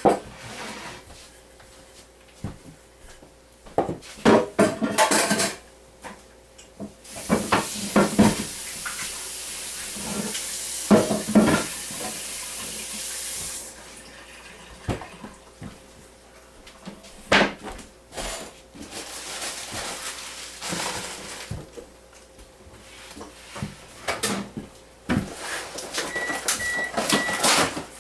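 Wooden rolling pin working pie dough on a floured wooden counter: irregular knocks and clatters as the pin is rolled, set down and picked up. A steady hiss runs for about six seconds in the middle.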